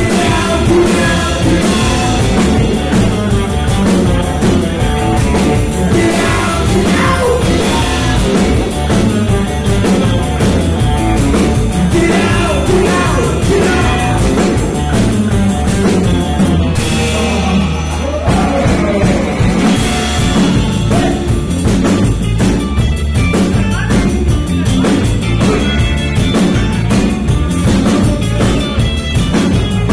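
Live rock band playing loud: electric guitars, bass guitar and drums, with sung vocals. About halfway through, the band briefly drops to a single held low note, then comes back in.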